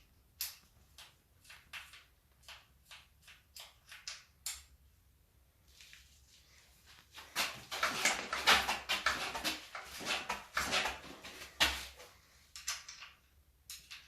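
Freshly rebuilt Marzocchi 888 RC3 mountain-bike suspension fork being pumped through its travel, with a short rushing noise on each stroke: about two strokes a second at first, then a louder, faster run of strokes in the middle.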